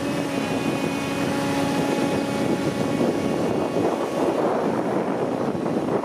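Diesel engines of a Cat asphalt paver and a Western Star dump truck running steadily while the truck tips asphalt into the paver. A steady humming tone rides on the engine noise for the first two and a half seconds or so, then fades.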